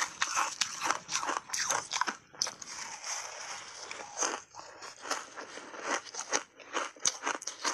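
Frozen mixed-berry ice coated in matcha powder crunching as it is bitten and chewed: rapid, irregular crunches, dense at first, thinning out around the middle, then picking up again.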